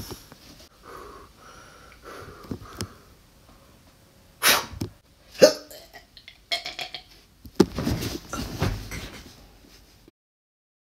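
A boy makes a string of loud, breathy vocal noises right at the phone's microphone in several short bursts, without words. The sound cuts off to dead silence near the end.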